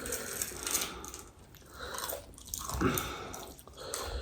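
A person chewing crunchy food close to the microphone, in uneven bouts with two short pauses.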